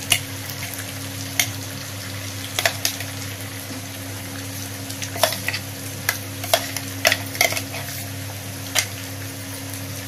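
Brinjal and potato pieces frying in a pan as the added masala is stirred in, with a dozen or so sharp clicks and scrapes of the spoon against the pan over a steady low hum.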